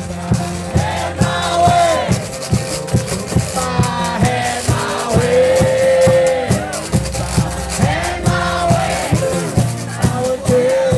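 Live acoustic blues: a steel-string acoustic guitar driving a fast, even rhythm, with a washboard played by hand along with it, and a man's voice singing long held notes over them.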